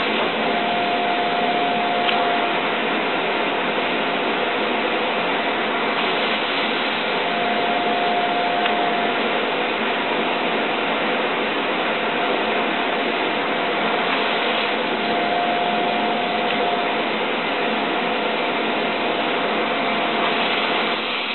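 Vacuum suction running steadily through a PVC hose held against a circuit board's solder joints, drawing off molten solder while a soldering iron heats the pins to desolder an IC. A faint high note comes and goes a few times over the steady rush of air.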